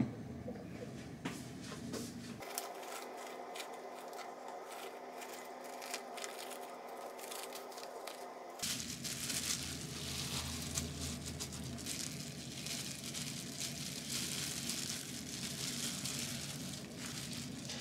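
Plastic crinkling and rustling from handling food: a plastic food bag, then thin disposable plastic gloves crinkling with dense small crackles while hands wrap pork slices around the pepper halves.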